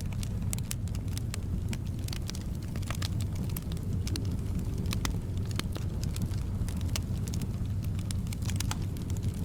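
Wood fire in a fireplace crackling, with irregular sharp pops and snaps over a steady low rumble of soft wind.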